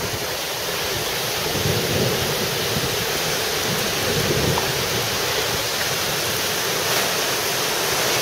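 Heavy thunderstorm rain pouring down in a strong wind: a steady, dense rushing hiss with a wavering low rumble underneath.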